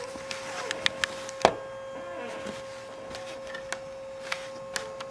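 Scattered light clicks and taps from the camera device being handled, the sharpest about a second and a half in, over a steady high electronic hum.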